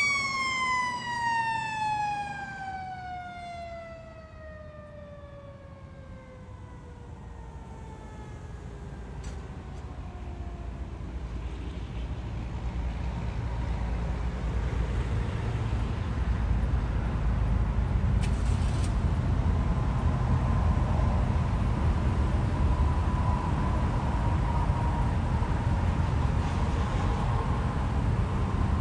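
Fire truck's Federal Q mechanical siren winding down, its pitch falling steadily and fading over about ten seconds. A steady low rumble then builds and holds.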